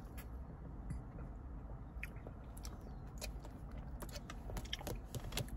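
Faint mouth sounds of sipping and chewing a thick milkshake with cookie bits through a straw. About four seconds in, small clicks and taps grow more frequent as the plastic cup is handled.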